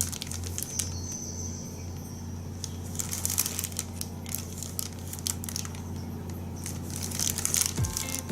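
Plastic packaging crinkling and crackling as it is handled, with a run of quick sharp crackles starting about three seconds in and busiest toward the end.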